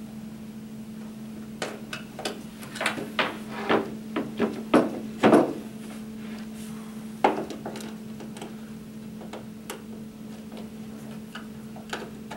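Knocks and clicks from handling the hutch's wooden furniture panels and a screwdriver while tightening cam locks. A quick run of them comes between about two and five seconds in, loudest near the middle, one more strong knock follows, then a few light clicks. A steady low hum runs underneath.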